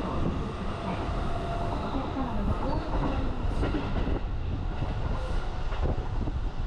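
Electric commuter train running at speed, heard from inside the passenger car: a steady rumble of wheels on rail, with a few clacks over rail joints a little over halfway through.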